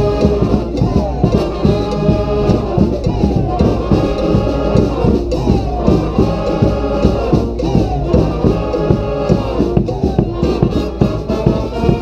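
Street brass band playing: trombones and trumpets over marching snare and bass drums, the horns repeating one riff about every three seconds.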